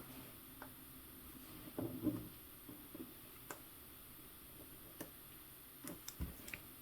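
Scattered small clicks and light knocks of RC track links and small parts being handled during a track-link repair, a louder clatter about two seconds in and a few more near the end.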